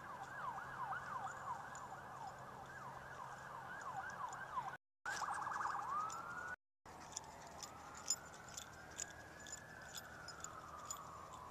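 Faint emergency-vehicle siren: a fast yelp of about four falling sweeps a second, switching after about six seconds to a slow wail that rises and then falls. Two brief dropouts cut the sound out for a moment around the middle.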